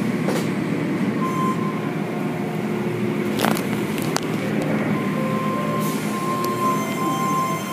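Automatic car wash tunnel running: a steady rumble of machinery, water spray and spinning cloth washers over a foam-covered car. A thin steady whine comes in briefly after about a second and again from about five seconds on, with two sharp knocks a little past the middle.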